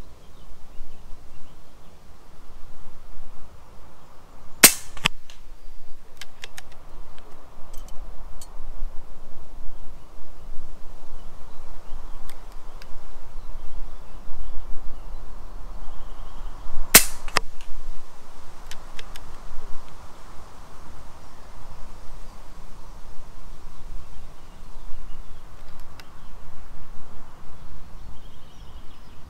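Two shots from a .177 FX Impact M3 PCP air rifle firing slugs, about twelve seconds apart, each a sharp crack followed by a few faint clicks. Steady wind noise runs underneath.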